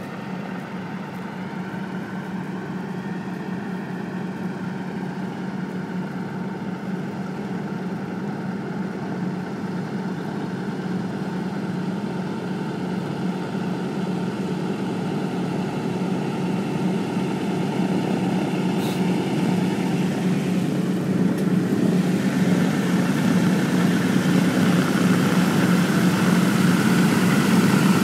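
An engine running steadily and growing gradually louder, with a low hum and slowly wavering higher tones.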